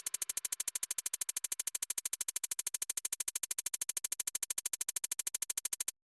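Electronic music: a rapid, even pulse of about ten beats a second that cuts off suddenly near the end.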